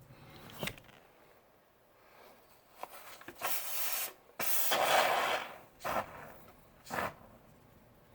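Can of expanding spray foam hissing out through its straw nozzle in two bursts, the second longer, with a few light knocks around them.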